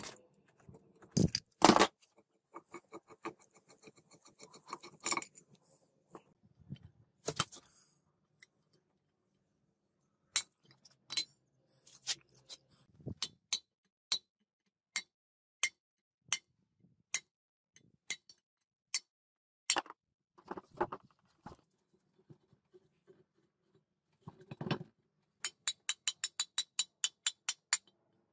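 Metal-on-metal clinks and knocks from hand tools worked on a rusty truck air compressor: a couple of heavy knocks early, then a run of quick light ticks and scattered single clinks. Near the end, a fast, even series of ringing hammer blows on the compressor shaft, about four a second.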